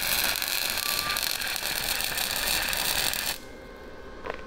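Gasless flux-core wire-feed (MIG) welder laying a bead: the arc's steady crackle, cutting off sharply about three seconds in. A single short click follows near the end.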